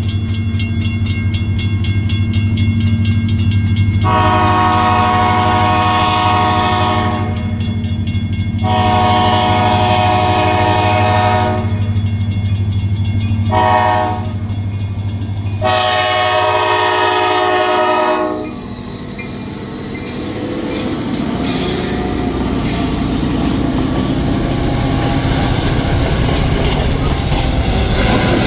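Diesel freight locomotives approaching a grade crossing, the engine running with the horn sounding the crossing signal: two long blasts, a short one and a final long one. About two-thirds of the way in the horn stops as the locomotives pass, and the freight cars roll by with a steady rumble and wheel clatter.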